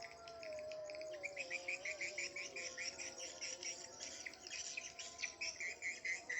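Swiftlets twittering: a rapid run of high chirps, about five or six a second, growing stronger about a second in. A lower wavering tone runs beneath for the first half.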